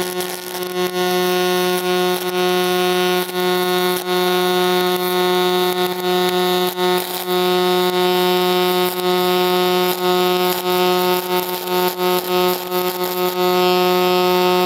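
Pulse-spray MIG (GMAW) arc laying a fillet weld on steel plate: a steady, pitched hum from the pulsing welding current, with a few brief crackles and dips. The even hum is the sign of a stable pulse-spray transfer.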